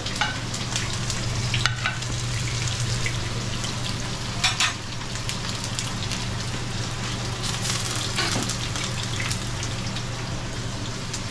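Chopped onion and garlic frying in hot oil in pans: a steady sizzle with fine crackling, over a steady low hum. A couple of sharper clicks stand out, about 2 seconds and 4.5 seconds in.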